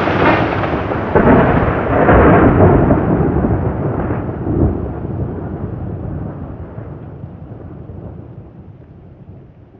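Thunder rolling, with a few swells in the first five seconds, then slowly dying away.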